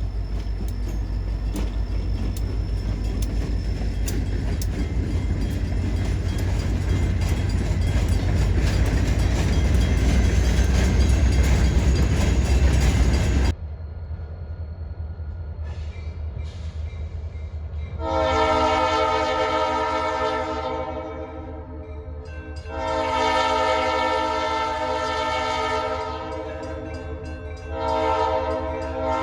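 A freight train rumbling past close by, loudest around ten seconds in, until the sound cuts off abruptly to a quieter rumble. Then a diesel locomotive's multi-chime air horn sounds two long blasts and starts a third near the end, the pattern blown for a grade crossing.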